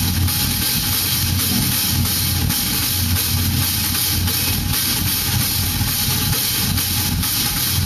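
Live experimental noise music: a dense wall of static hiss over a steady low hum, with drums knocking about once a second.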